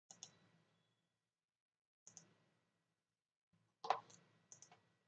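Faint computer mouse clicks, coming in quick pairs of press and release, about four times, with the loudest pair about four seconds in.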